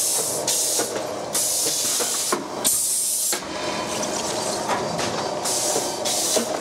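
Cigarette pack wrapping machine running, with a mechanical clatter of light clicks and a loud hiss that cuts in and out every half second to a second.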